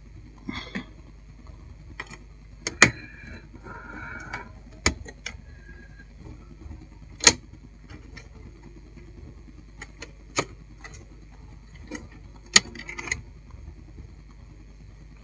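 A screwdriver and small screws clicking and knocking against a satellite receiver's metal chassis and power-supply circuit board as the board is screwed down: scattered sharp clicks a second or two apart, a few of them loud, with a short bout of handling rustle about four seconds in.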